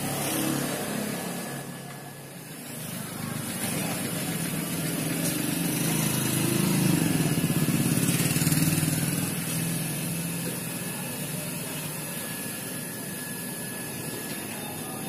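A motor vehicle engine running with a fast, even beat. It grows louder over the first few seconds, is loudest in the middle and then eases off, as a vehicle passing on the street or running nearby would.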